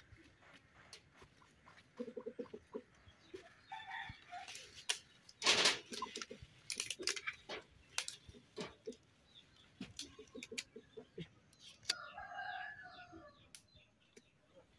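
Domestic chickens clucking in short bursts, with a longer drawn-out call about twelve seconds in, among scattered sharp clinks and knocks, the loudest about five and a half seconds in.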